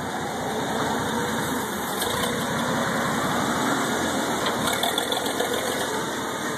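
Clark forklift's engine running steadily as the truck drives along carrying a heavy power hammer on its forks.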